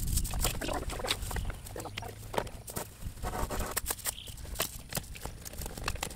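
Steel chain clinking and rattling in many small irregular clicks as it is handled and wrapped around a wooden fence brace post, to anchor the chains for a fence stretcher.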